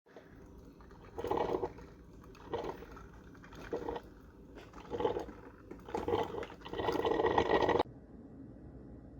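Elite Gourmet EHC-5055 drip coffee maker gurgling and sputtering in irregular bursts as hot water is pushed up through it to brew. The bursts grow longer toward a final sustained gurgle that cuts off abruptly.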